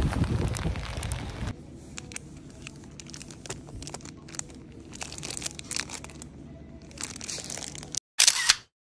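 Cellophane wrapping on packaged planners crinkling and clicking as they are handled. Before it, for about the first second and a half, a low rumble of wind on the microphone; near the end a brief loud burst of sound cuts off into silence.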